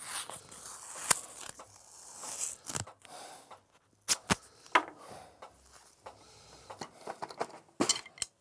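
Scattered light clicks and taps with faint rustling: handling noise around a drum kit, with a quick run of clicks near the end before the drumming starts.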